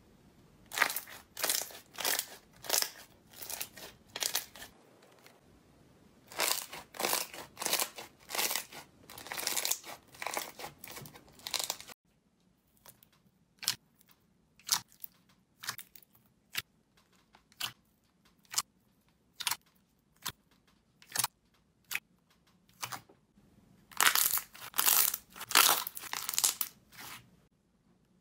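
Slime being pressed and poked by hand, giving bursts of dense crackling and popping. From about halfway, single sharp pops come roughly one or two a second as fingers press into clear slime studded with small balls. Dense crackling returns near the end.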